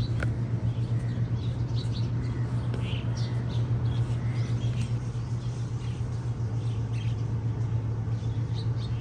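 A steady low hum throughout, with faint, short, high chirps scattered over it.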